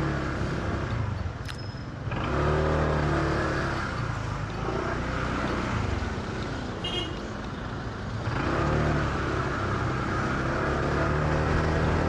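Motorcycle engine and road noise picked up by a helmet-mounted microphone while riding in traffic. The engine pulls under throttle, eases off a second in and again from about six to eight seconds, then pulls again.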